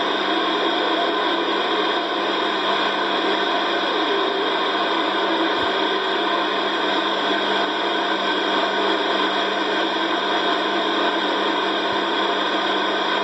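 CB radio receiver putting out steady static hiss from its speaker with the squelch open: band noise on the channel while no station is transmitting.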